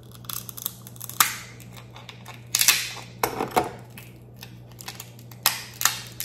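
Dungeness crab claw shell cracking and crunching as it is squeezed in a metal crab cracker and pried apart by hand: about half a dozen sharp cracks, the loudest about two and a half seconds in.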